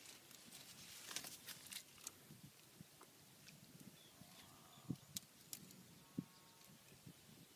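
Faint scattered clicks and a few soft thumps as a wet cast net is worked by hand in shallow mud.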